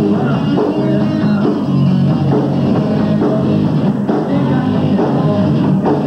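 Live rock band playing loud: electric guitar and drum kit with cymbals, continuous and dense.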